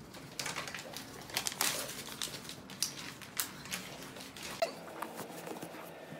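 White cloth bed sheet being handled and shaken out, rustling in short irregular crackles that stop about four and a half seconds in.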